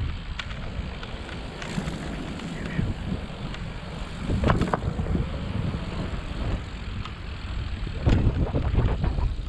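Wind rumbling on a helmet-mounted camera's microphone while riding a bicycle over paving, with scattered clicks and knocks. Louder gusts of rumble come about four and a half seconds in and again near the end.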